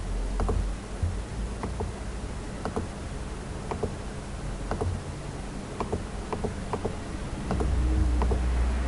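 Computer mouse clicking now and then, about one or two short clicks a second, over a steady low hum, with a louder low rumble near the end.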